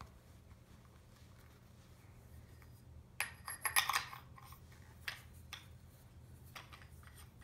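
Paintball gun being handled: a quick cluster of metallic clicks and rattles about three seconds in, then a few lighter single clicks.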